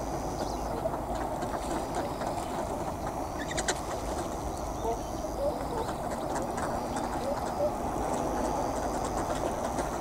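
A large flock of ducks crowding for thrown bread on a pond, a steady mass of quacking and chattering with scattered short calls and small splashes.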